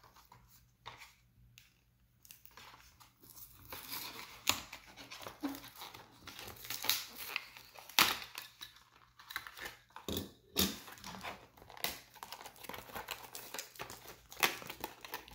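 Hands handling stiff clear plastic blister packaging and a plastic display case of diecast toy cars: plastic crackling and rustling with many sharp clicks. It starts about two seconds in, and the loudest clicks come around the middle and near the end.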